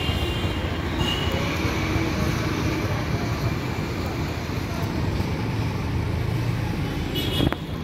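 Steady street traffic noise, a low rumble of passing vehicles.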